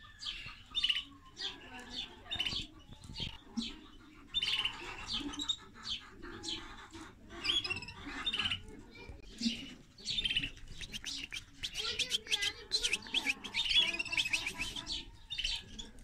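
Cage birds, canaries and canary-finch hybrids, chirping and twittering in quick runs of short high notes that grow busier about three-quarters of the way through.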